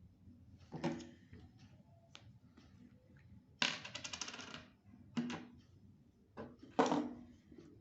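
Light clinks of hard objects knocking together, four short ones with a slight ring, and a rapid rattling clatter lasting about a second in the middle.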